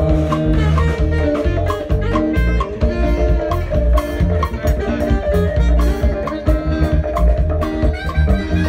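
A live band playing an upbeat instrumental gospel groove, with heavy bass and a steady drum beat.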